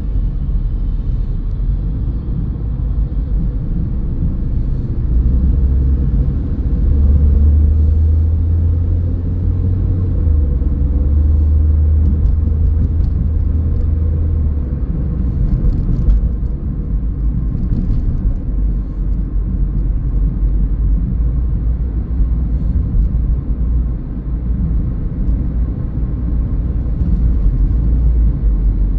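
Car driving on the road: steady low rumble of engine and tyre noise, deeper and louder from about five to fourteen seconds in.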